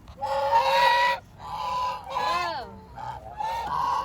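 A series of loud, drawn-out honking animal calls, several about a second long, one falling in pitch a little past the middle.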